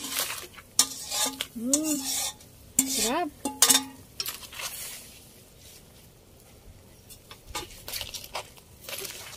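Metal slotted turner clinking and scraping against a pot and a wok as cooked crabs are tipped and stirred into coconut milk, with faint sizzling underneath. The clatter is busiest in the first four seconds, dies down, then comes back as lighter scrapes near the end.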